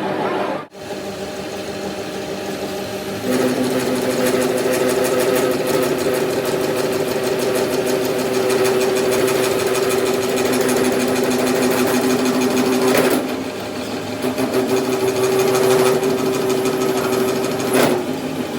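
A workshop machine running steadily: a steady hum with a fast, even mechanical rattle, its note shifting a few times.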